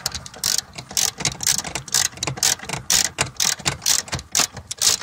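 Ratchet wrench with a socket extension tightening a bolt on a clutch pedal bracket: quick runs of ratchet clicks, stroke after stroke.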